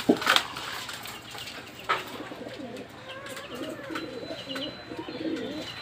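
Pigeons cooing: low, wavering calls that overlap and keep coming from about two seconds in. A sharp knock comes just before them.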